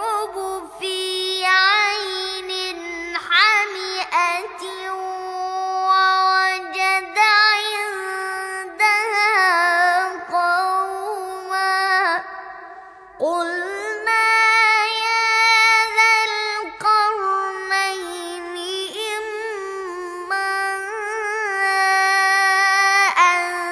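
A boy's high voice in melodic (mujawwad) Quran recitation, holding long notes with wavering ornamented runs. He breaks off briefly for breath about halfway through.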